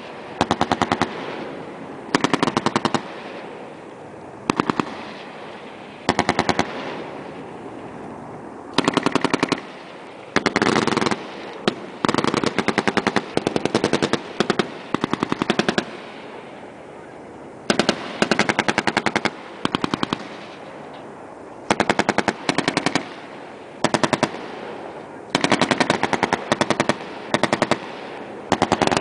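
M240B 7.62 mm machine gun fire: short bursts of rapid shots follow one another every second or two, with the reports echoing and fading away between bursts.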